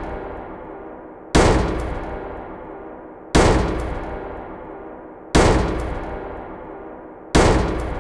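Four heavy booming hits, evenly spaced about two seconds apart. Each one dies away slowly in a long echoing tail.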